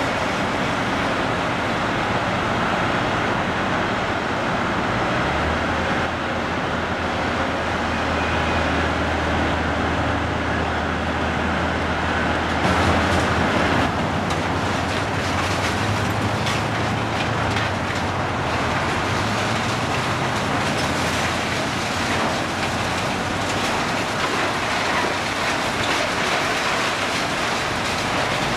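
Volvo demolition excavator at work on a building: a steady engine drone, with a low hum for the first half. From about halfway through, rapid clattering and crunching of debris and torn metal.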